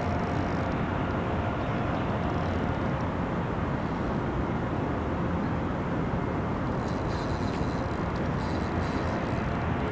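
Steady low rumble of outdoor ambient noise with no distinct events; a faint high hiss comes in about seven seconds in and fades a second or two later.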